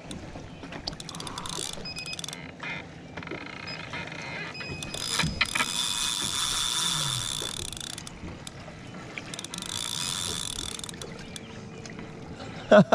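Spinning reel under the load of a hooked fish: its gears and drag ratchet grind and click as line is cranked in and pulled out, loudest in two stretches in the middle. A short loud burst near the end.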